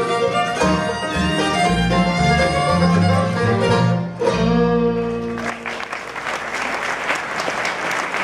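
Bluegrass band of fiddle, banjo, guitar, mandolin and upright bass playing the closing bars of a tune, ending on a held final chord about five seconds in. Audience applause follows.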